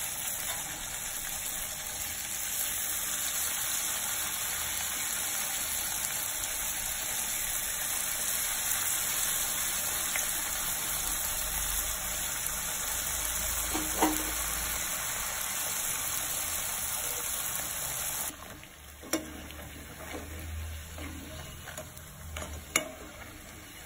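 Rice-flour discs deep-frying in hot oil in a kadai make a steady sizzle. The sizzle cuts off suddenly about three-quarters of the way through, leaving a few sharp clicks of a metal slotted spoon against the pan as the fried discs are lifted out.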